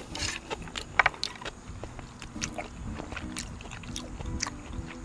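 A person eating jjajangbap: scattered sharp clicks of a utensil against the dish and chewing, over soft background music.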